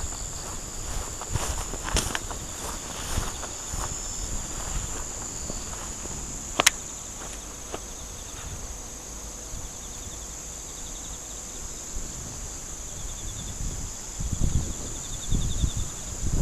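Steady, high-pitched insect chorus in the grass, with another insect's pulsing trill that comes and goes several times. Footsteps through the grass, heavier near the start and the end, and one sharp click a little before halfway.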